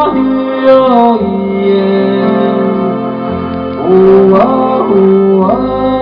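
Live folk song: a male voice singing long held notes that slide between pitches, accompanied by acoustic guitar.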